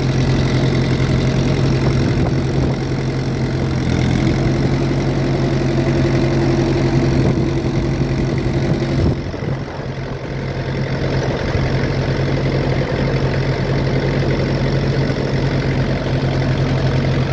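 1967 International 434 tractor engine running steadily under load, pulling a plough through heavy, wet ground. About nine seconds in, the sound drops briefly and becomes duller, then builds back up.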